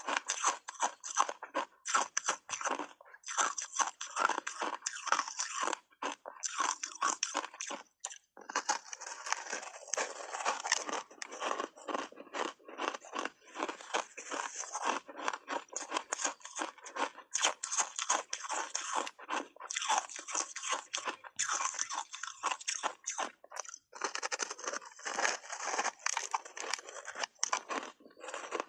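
Close-up crunching of frozen ice bars being bitten and chewed, a dense run of rapid cracks and crackles that continues with only brief pauses.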